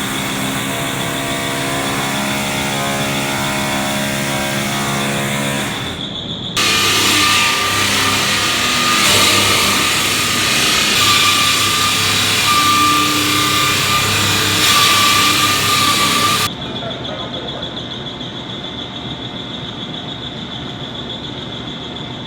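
Industrial machinery running inside a mill under construction work. First comes a steady pitched mechanical drone with a constant high whine. About six seconds in, a much louder, harsh, dense noise with a steady whistling tone takes over for about ten seconds, then gives way to a quieter steady machine hum.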